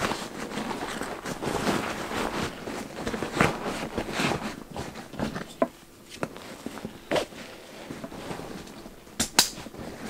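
Rucksack compression strap of nylon webbing being pulled tight through its plastic buckle: rustling of the strap and the bag's fabric with a scatter of short clicks and knocks, busiest in the first half. A sharp click comes near the end.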